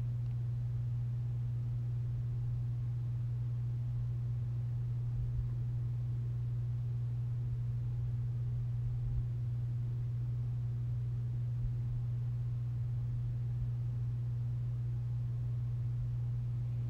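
A steady low hum, one unchanging low tone with nothing else standing out.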